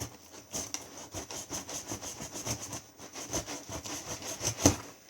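A blade being drawn through packing tape on a cardboard box: repeated short scraping strokes, with a sharper knock near the end.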